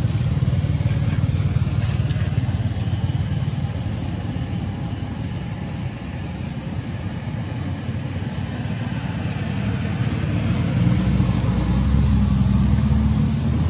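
Steady outdoor background noise: an even high-pitched hiss over a low rumble, the rumble growing louder near the end. No monkey calls stand out.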